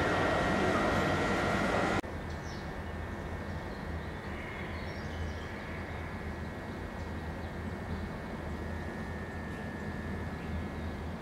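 Railway station ambience. A loud, steady rushing noise with whining tones cuts off abruptly about two seconds in, leaving a quieter, steady low hum with a faint thin tone above it.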